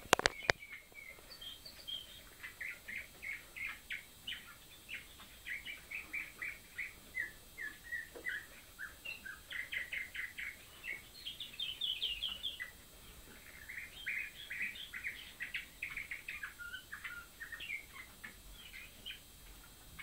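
Canaries twittering: a steady run of short, quick chirped notes that goes on throughout. A few sharp clicks right at the start are the loudest sounds.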